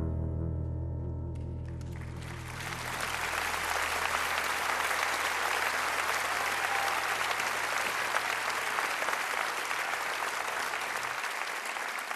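The last sung note of a song, held with vibrato over a sustained chord, dies away in the first couple of seconds, and an audience breaks into applause that carries on for the rest.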